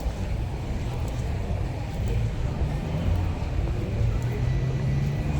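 City street traffic: car engines running and passing as a steady low rumble, with an engine hum growing louder in the second half.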